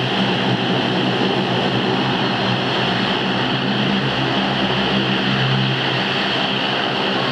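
Bombardier Dash 8 Q400's two Pratt & Whitney PW150A turboprop engines running at low power as the aircraft turns on the runway: a steady propeller drone with low humming tones and a higher whine over it.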